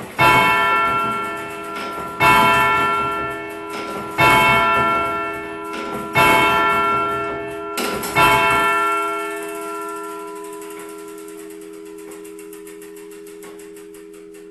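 Church turret clock striking five on its hour bell: five strokes about two seconds apart, the last one's hum dying slowly away. The clock's ticking comes through faintly near the end.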